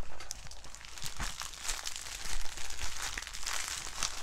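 Plastic film crinkling and crackling irregularly as a diamond-painting canvas with its clear protective cover film is handled.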